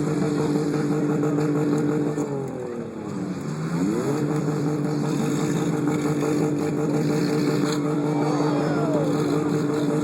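Demolition derby car engine held at high revs. It drops off about two seconds in, then revs back up about four seconds in and holds steady again.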